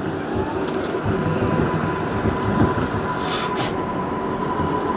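R142A subway train running on elevated track: a steady whine from the propulsion, rising slightly near the start and then holding, over the rumble and clatter of steel wheels on the rails.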